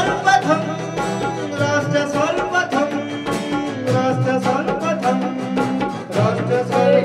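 Opening title music of a TV news programme: a melody over a steady drum beat.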